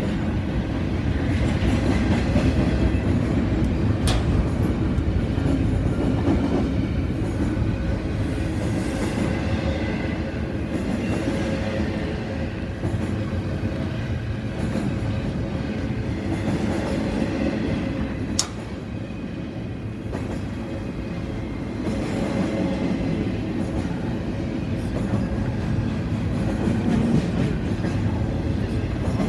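Double-stack intermodal container cars rolling past, steel wheels rumbling and clacking steadily on the rails. A sharp click comes about four seconds in and another about eighteen seconds in.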